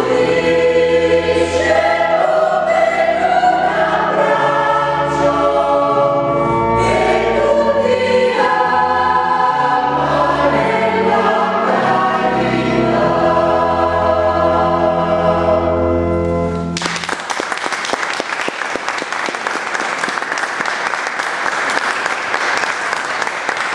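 Mixed choir of men's and women's voices singing in parts, ending on a held chord; about 17 seconds in the singing stops and the audience applauds.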